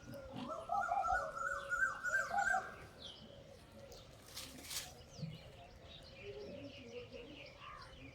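Birds calling outdoors: runs of short, quickly repeated notes in the first three seconds, then fainter scattered chirps. There is a brief hiss about four and a half seconds in.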